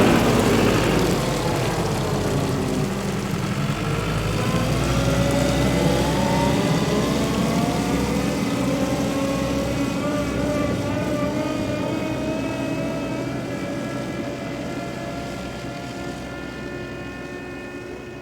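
An engine running with a steady, pitched drone. Its pitch rises gradually over several seconds and then holds, and the sound fades out near the end.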